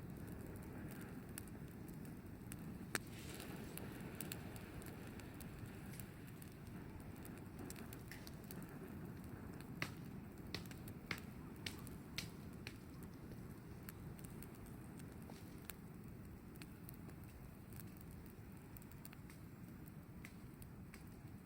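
Wood campfire burning, with scattered sharp crackles and pops over a steady low rush, and a quick run of pops about halfway through.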